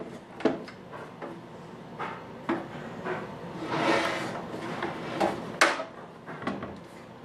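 The metal case of a DVD home theater unit being handled and turned over on a wooden board: scattered knocks and clunks, the loudest about five and a half seconds in, and a scraping slide around four seconds in.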